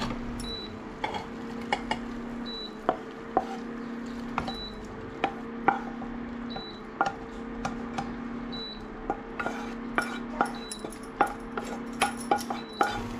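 Wooden spatula scraping cooked greens out of a nonstick pan into a steel container, with irregular clicks and knocks against the pan and the bowl that come more often near the end. Under it, an induction cooktop's steady hum cuts out and comes back every couple of seconds.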